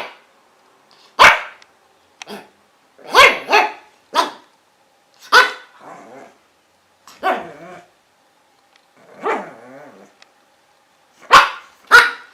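A dog barking: about ten sharp barks at uneven intervals, some single and some in quick pairs, a few of them more drawn out.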